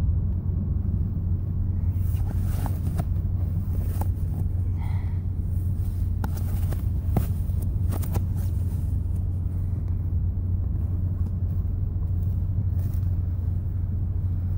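Nylon sleeping bag rustling and crinkling as it is rolled up in a car's back seat, busiest in the first half, over a steady low hum inside the car.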